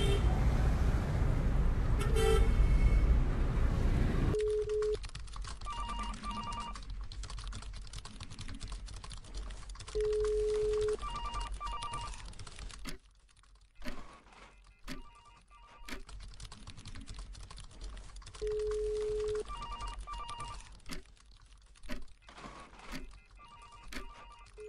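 Sound-designed office ambience: telephones ringing on and off, with keyboard typing clicks and a low beep about a second long, heard three times. It opens with a few seconds of louder, even street noise.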